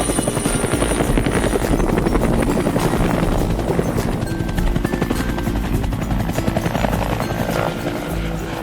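Cartoon helicopter sound effect: rotor blades chopping fast and steadily. Background music comes in underneath about halfway.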